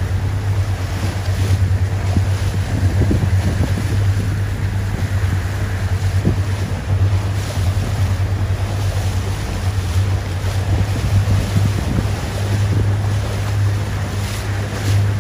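Steady low hum under wind buffeting the microphone and a rush of water, like a boat under way on open sea.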